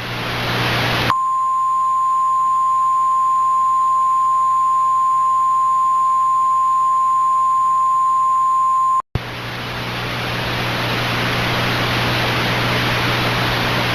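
Weather-radio warning alarm tone: a loud, steady single tone near 1 kHz held for about eight seconds over radio hiss and low hum, cutting off about nine seconds in. After a brief dropout, radio static hiss with a low hum carries on.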